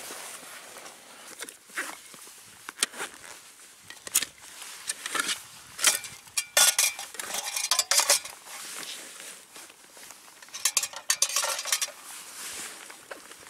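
Metal canteen cup and mess gear clinking and clattering as it is handled, in irregular sharp knocks that are busiest around six to eight seconds in and again around eleven seconds.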